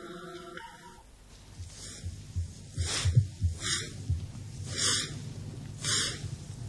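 A broom sweeping in repeated strokes, a swish about once a second, starting about a second in, with soft low thumps between strokes.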